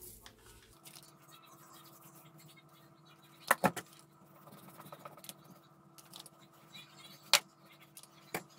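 Small foam paint roller rolling over a speaker cabinet, with a faint steady hum underneath. Sharp clicks and knocks break in: two close together about three and a half seconds in, a single louder one a few seconds later, and a smaller one near the end.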